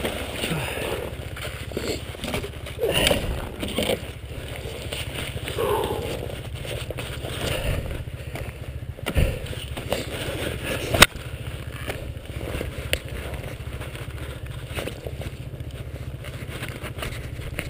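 KTM 300 EXC's single-cylinder two-stroke engine idling steadily, with a few knocks and clicks, the sharpest about eleven seconds in.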